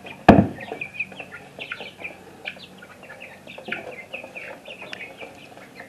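Young chickens clucking and peeping in short, high calls. A single loud knock comes about a third of a second in.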